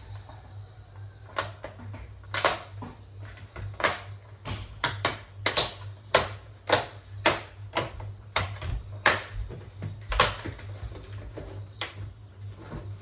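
Irregular sharp clicks and taps, one or two a second, of plastic and metal computer parts being handled and fitted together while reassembling an all-in-one PC.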